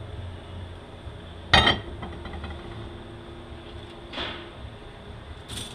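Steel automatic-transmission parts being handled: one sharp metallic clank about one and a half seconds in with a faint ringing after it, then a softer clink a little after four seconds, over a steady low shop hum.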